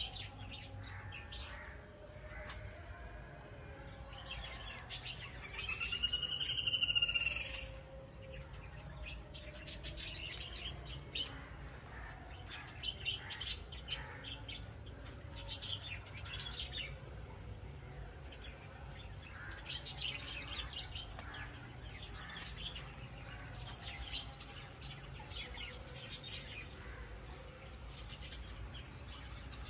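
Birds chirping, with many short chirps scattered throughout. About six seconds in, one louder call of quick wavering notes lasts about two seconds.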